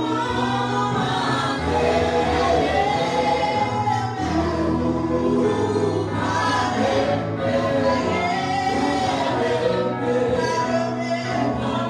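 Worship music: a group of voices singing a gospel song together over steady held low accompaniment notes.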